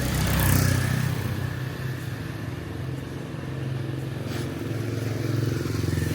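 A motor engine running with a steady low drone, swelling louder for a moment about half a second in.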